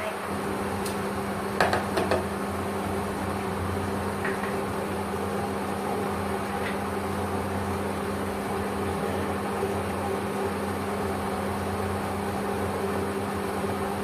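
Steady electric hum and fan noise of an induction cooker heating a pot of soup stock toward the boil, with two light knocks about two seconds in.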